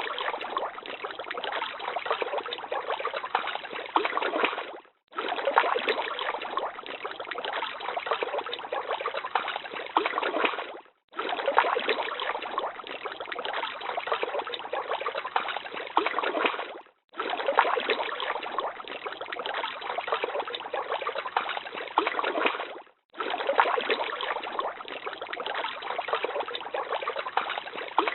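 Running water trickling and splashing steadily, a short clip of about six seconds repeated in a loop, with a brief break each time it starts over.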